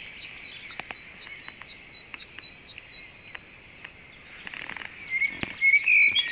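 Songbirds singing: a rapid run of short high chirps, about three a second, over a steady high chorus, then louder whistled notes rising in pitch near the end, with a few faint clicks.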